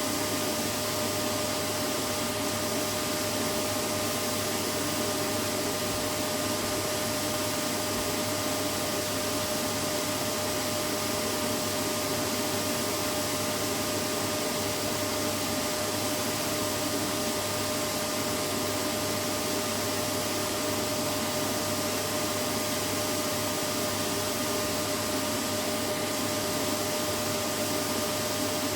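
Vacuum cleaner running steadily: an even rushing noise with a constant motor hum and whine, unchanging throughout.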